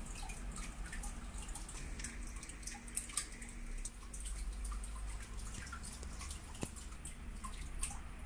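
Low steady hum with faint, irregular small clicks and ticks scattered through it.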